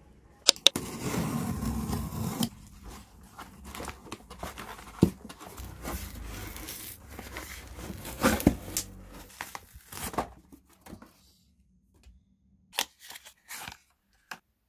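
A cardboard shipping box being torn open along its tear strip. It starts with a sharp snap and a rip of about two seconds, followed by rustling of cardboard and packaging as the contents are handled. A few light taps come near the end.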